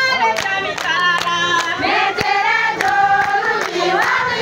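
A group of people singing together, with hand clapping.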